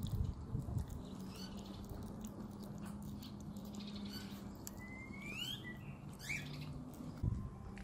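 A husky sniffing right at the microphone, with a few thumps near the start and just before the end. A bird chirps twice midway, over a faint steady hum.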